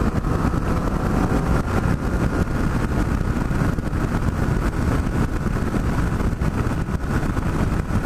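Yamaha FJ-09's three-cylinder engine pulling steadily in third gear at highway speed, mostly buried under heavy wind rush on the helmet-mounted microphone.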